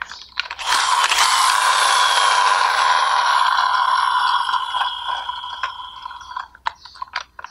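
Plastic toy car's gear motor whirring as its wheels spin freely, starting about half a second in and winding down, fading out over several seconds. A few small clicks of handling follow near the end.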